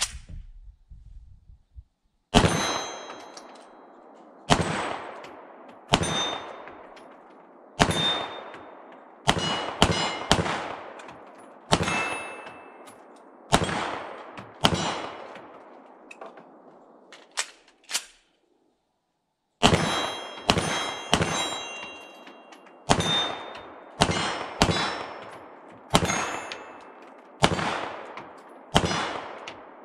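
Canik SFx Rival 9mm semi-automatic pistol fired at a steady pace, a shot roughly every second, with a short break about two-thirds through. Many shots are followed by the ringing clang of a struck steel plate target.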